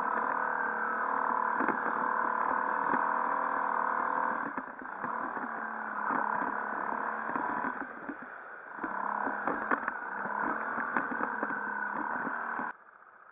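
Quad bike (ATV) engine running under way, easing off twice, with scattered knocks and rattles; the sound cuts off suddenly near the end.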